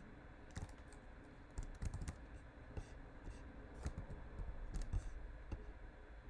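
Irregular light clicks and taps in small clusters, some with a soft low thump beneath them.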